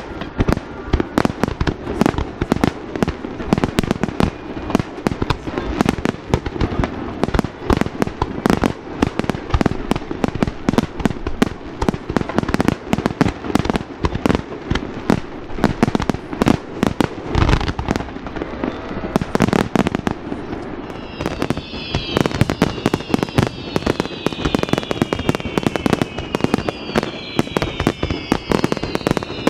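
Fireworks display: aerial shells bursting in a rapid, dense barrage of bangs and cracks. From about two-thirds of the way through, several whistles gliding down in pitch join in.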